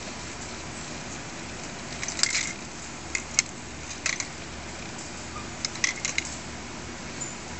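Miniature Pinscher puppies at play: short clicking, rattling bursts about two, three, four and six seconds in, over a steady background hiss.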